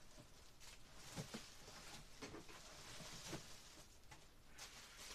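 Faint rustling and a few light knocks from things being handled and moved about.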